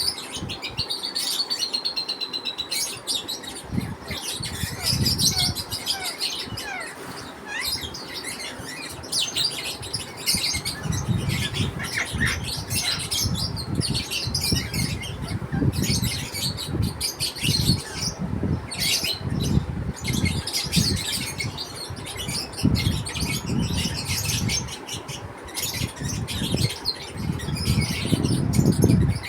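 A flock of pet lovebirds chirping constantly, a dense chatter of short, high chirps, with low bumps and rustles from the birds moving about underneath.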